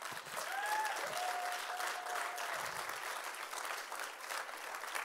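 Congregation applauding, a steady patter of clapping. One voice in the crowd calls out a long held cry over it in the first couple of seconds.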